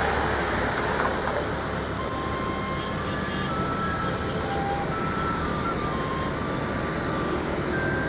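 Steady wind and road noise with a low engine hum from a motorbike riding along a highway. Over it runs a faint string of short high tones that step between pitches like a simple tune.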